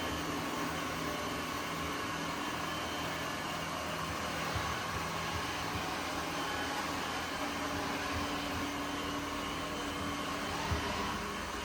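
Ecovacs Deebot N8 Pro+ robot vacuum running with a steady motor hum and whir, with a couple of light knocks, the sharpest near the end.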